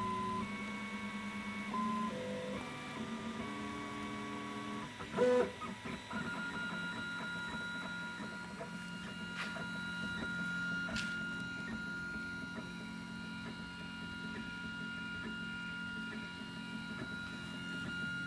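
Prusa i3 3D printer's stepper motors whining in clear tones that jump in pitch every half second or so, with a sharp knock about five seconds in, then settling into one steady high whine over a low hum.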